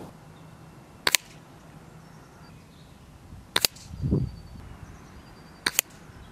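Brocock Compatto pre-charged pneumatic air rifle firing three single shots about two and a half seconds apart, each a short sharp crack, at high, medium and low power in turn. A dull thump follows shortly after the second shot.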